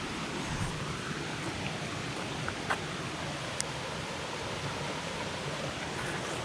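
Steady rush of a waterfall cascading over rocks, with a few faint short clicks about two and a half and three and a half seconds in.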